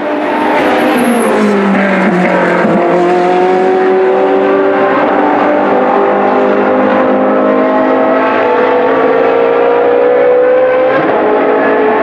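Ferrari 458 Challenge race car's 4.5-litre naturally aspirated V8 on track. Its note falls over the first two seconds and jumps up just before three seconds in. It then rises steadily through a long pull under acceleration and drops at a gear change about eleven seconds in.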